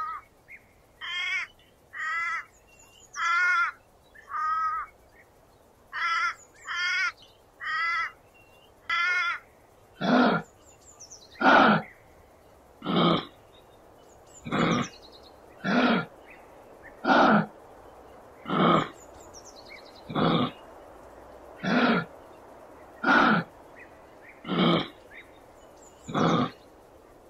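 Animal calls repeating loudly: a run of short, wavering calls for the first ten seconds or so, then single harsher calls about every second and a half.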